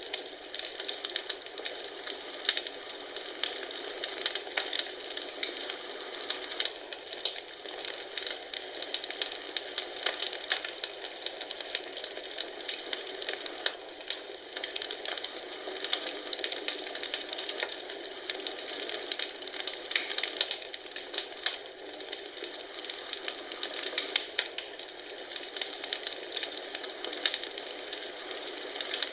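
Wood fire crackling in a fireplace: a steady, dense run of small pops and snaps.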